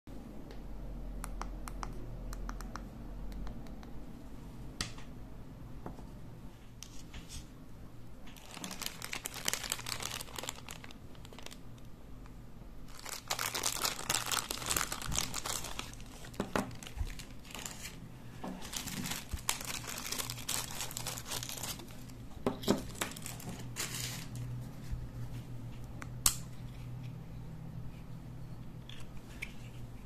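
Clear plastic parts bags crinkling in several bursts of a few seconds each as they are handled, with a few sharp clicks and a faint steady low hum underneath.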